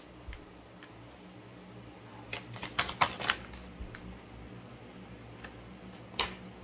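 Oracle cards being handled and set down on a table: a quick run of light clicks and taps about two and a half seconds in, then one more tap near the end.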